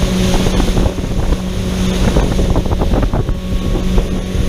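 Outboard motor of a 2019 Sun Tracker Bass Buggy 18 DLX pontoon boat running steadily at cruising speed, a constant engine hum under rumbling wind noise on the microphone.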